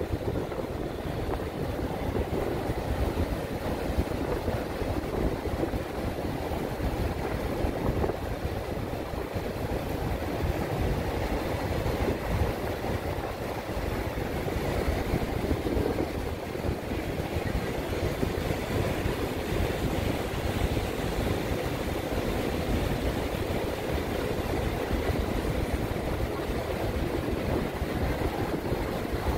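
Passenger ferry under way: a steady low rumble of engine and rushing water, with wind buffeting the microphone.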